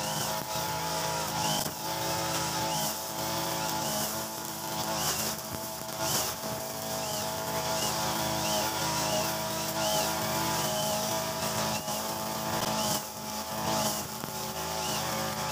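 Mitsubishi backpack brush cutter's small two-stroke engine running steadily at cutting speed. Its nylon line head is whipping through grass.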